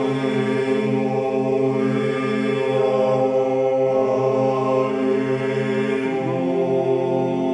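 Background music: slow vocal chant, several voices holding long notes over a steady low drone, the harmony shifting every couple of seconds.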